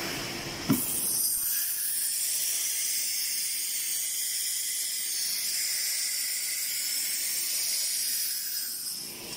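CNC router's automatic tool-change spindle at work: one sharp pneumatic clack about a second in, then a steady hiss of compressed air from the spindle that stops just before the end.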